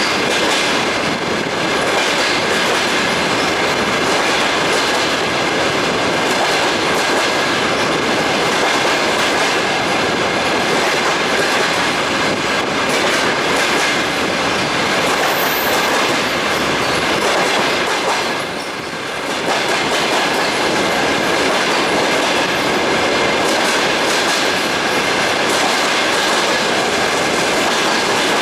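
Moving train heard from inside the carriage: a steady rumble of wheels on the rails with the clickety-clack of the rail joints, and a thin steady high whine over it. The sound drops briefly about 18 seconds in, then comes back.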